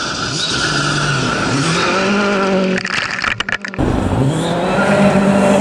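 Rally car engine revving hard and shifting up through the gears, the pitch climbing and dropping back several times as it accelerates. About three seconds in the sound turns choppy and breaks up briefly before the engine note picks up again.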